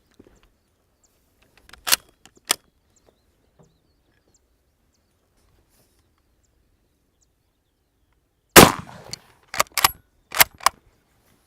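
A .303 Lee-Enfield No.4 Mk I* bolt-action rifle fires a single loud shot about three-quarters of the way in, followed by four quick metallic clacks, typical of the bolt being worked to eject and rechamber. Two sharp clicks of handling the rifle come earlier.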